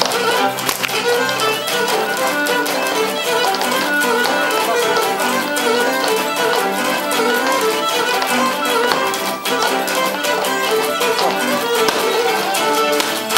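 Live Cretan folk dance music: a bowed string melody over the strummed and plucked laouto, in a lively, steady dance rhythm.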